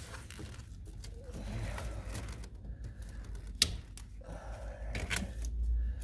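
Tin snips cutting plastic zip ties off a car's wiring harness: a few sharp snapping clicks, the loudest about three and a half seconds in and another about five seconds in.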